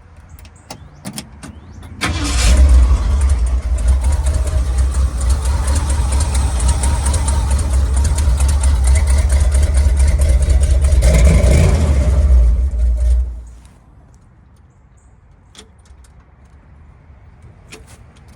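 A 1979 Ford Bronco's 351 V8 catches and runs loudly for about eleven seconds, then shuts off. It is running again after a new battery and a tune-up. A few faint clicks come before and after.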